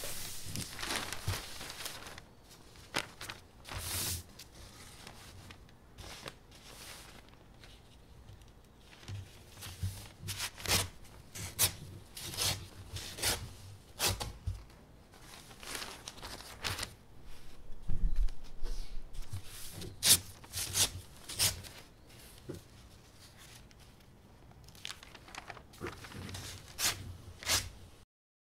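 Large sheets of Korean painting paper being handled and then slit along the edge with a knife: a brief rustle of paper, then a long run of short, crisp rasping strokes at uneven spacing as the blade tears through. It stops abruptly near the end.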